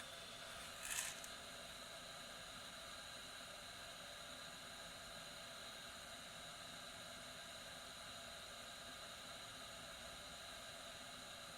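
Hot-air rework station blowing a steady, faint hiss while reflowing the solder under a replacement SMD backlight LED. A brief sharper hiss comes about a second in.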